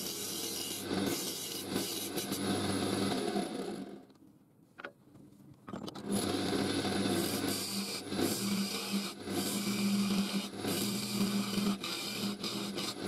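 Lathe gouge cutting a small spinning wood workpiece: a continuous scraping hiss of shavings coming off over a low machine hum. It stops for about two seconds partway through, with a single click in the gap, and then resumes.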